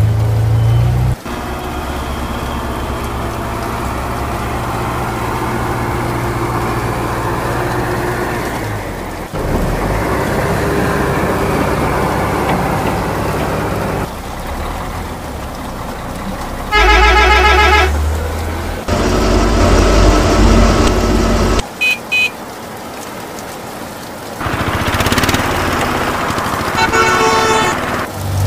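Vehicle engine sounds running in long steady stretches, broken by horn honks: one about seventeen seconds in, two short toots soon after, and a longer one near the end.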